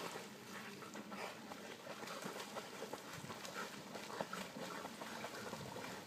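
Two puppies swimming and splashing in lake water, with small dog sounds from them mixed in. The sounds come as a busy, irregular patter of short splashes and noises.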